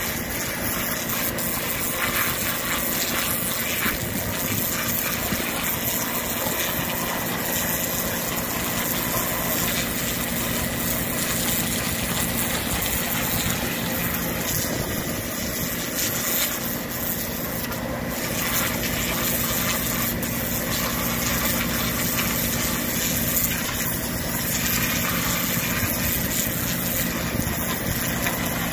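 Pressure washer running steadily, its motor and pump humming without a break, as the high-pressure water jet sprays the mud off a hanging wheel-loader transmission casing.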